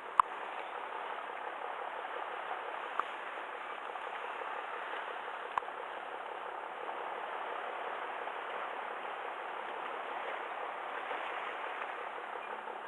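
Steady rush of water at the shoreline, with three small sharp clicks in the first six seconds.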